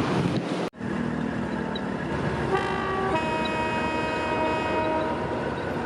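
Diesel railcar running noise, cut off abruptly a little under a second in; then a horn sounds, a short note about two and a half seconds in followed at once by a longer note of a different pitch held for over two seconds.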